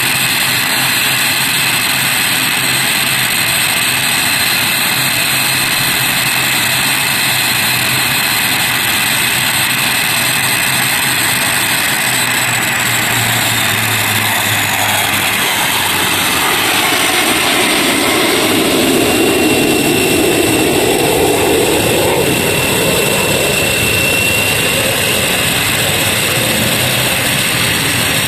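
ATR 72-600's Pratt & Whitney PW127 turboprop engines and propellers running on the ground during an automatic takeoff power control system (ATPCS) test. About halfway through, the whine drops in pitch and a low hum stops. A louder rushing noise then swells for several seconds and eases.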